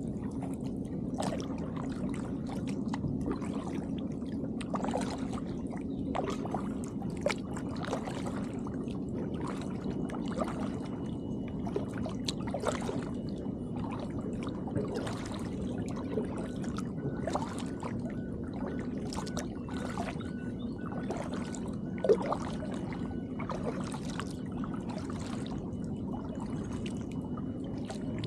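Double-bladed kayak paddle dipping and pulling through calm water, a splash and trickle about once a second, over a steady low hum. A sharp knock a little after 22 s is the loudest moment.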